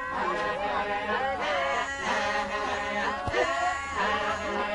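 Maasai warriors chanting as a group, several voices overlapping.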